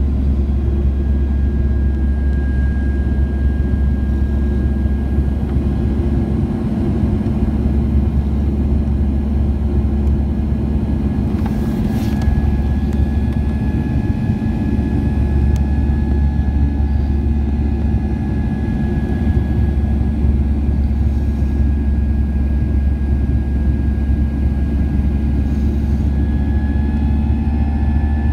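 Steady cabin drone of a Boeing 737-800's CFM56-7B turbofan engines climbing after takeoff, heard from a window seat beside the engine, with a faint high whine over the low rumble. A brief faint click about halfway through.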